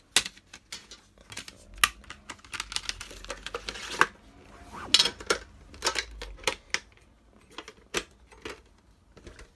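Plastic DVD cases being handled: irregular sharp clicks and clacks, with a rustling stretch around the middle.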